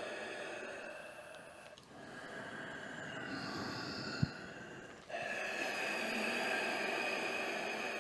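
A person breathing slowly and audibly, in long drawn-out breaths, with one short sharp click a little past the middle.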